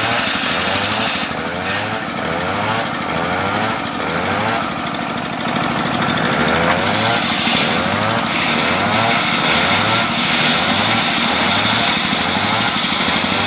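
Engine-driven homemade sawmill running steadily with a rhythmic pulse about twice a second, its saw cutting through a coconut-palm trunk, the hissing cutting noise rising and falling several times.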